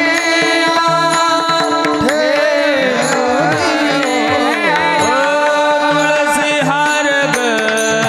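Marathi devotional kirtan singing: a male voice sings a richly ornamented, sliding melody over a steady drone, with a drum whose deep strokes bend downward in pitch and sharp rhythmic clicks keeping the beat.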